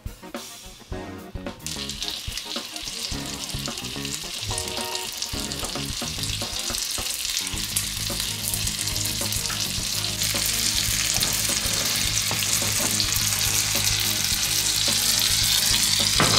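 Butter and sugar caramel sizzling in a cast-iron frying pan with peeled mandarins frying in it. The sizzle starts about two seconds in and grows steadily louder.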